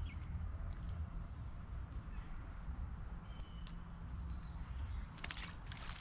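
Small songbirds calling: scattered short, high chirps, with one sharp chirp about three and a half seconds in that is far louder than the rest, over a steady low rumble. A couple of brief soft ticks come near the end.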